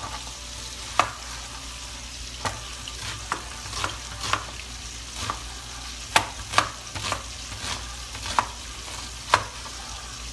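Chuck roast searing in hot oil in a skillet, sizzling steadily, with a dozen or so sharp clicks and clacks scattered through it as the meat is turned and browned.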